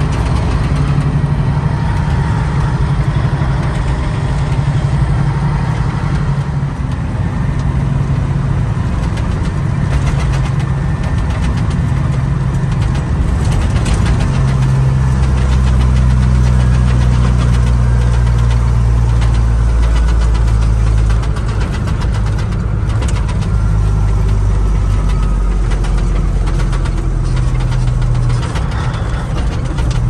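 Diesel engine of a 1986 Ford LTL 9000 truck running under way, heard inside the cab, a deep steady drone. About halfway through it pulls harder and louder for several seconds, then eases off.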